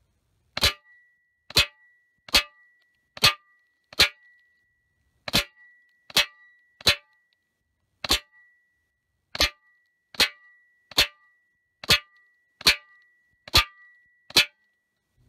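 Sixteen subsonic .22 Short rounds from a Winchester Model 74 semi-automatic rifle striking the metal target panel, heard at the target. Each sharp smack of a hit comes just after a faint report of the shot, about one a second with a short pause after the fifth, and a faint high ring hangs on between hits.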